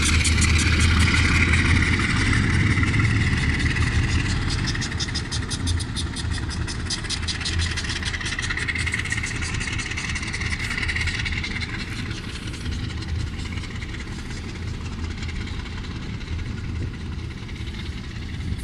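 Diesel locomotive engine running under load as the train pulls away, its low steady hum fading gradually. A fast, even clicking sounds over it for the first dozen seconds or so.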